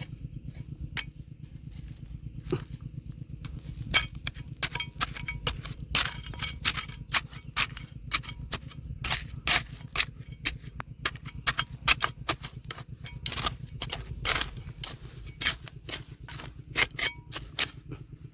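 Rocks and metal digging tools knocking and clinking, dozens of sharp strikes in quick irregular succession, some ringing briefly, over a steady low hum.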